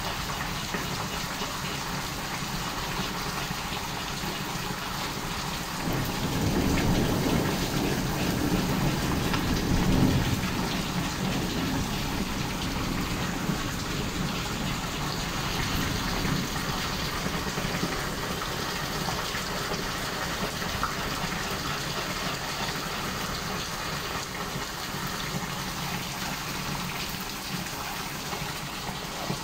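Rain falling steadily during a thunderstorm, with a low rumble of thunder swelling about six seconds in and dying away after about five seconds.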